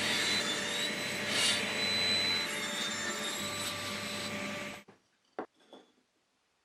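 Wood lathe running with a tool working the spinning wood: a dense scraping hiss over steady motor tones. It cuts off suddenly about five seconds in, followed by two light knocks.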